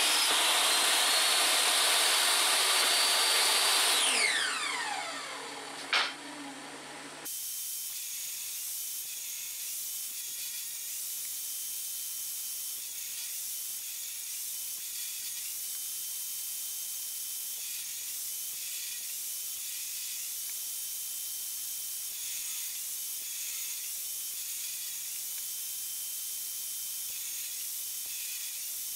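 Jobsite table saw running and ripping a pine slat, then switched off, its blade whine falling in pitch as it spins down, with a sharp knock about six seconds in. After about seven seconds the saw is silent and only a steady high hiss remains.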